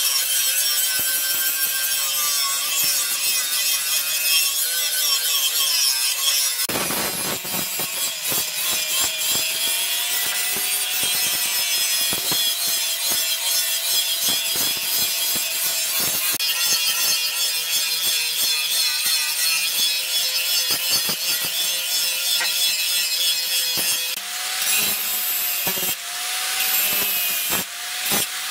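Electric angle grinder with an abrasive disc grinding a steel cleaver blank cut from a tractor plough disc: a continuous harsh grinding hiss over a steady motor whine that wavers slightly as the disc works the steel.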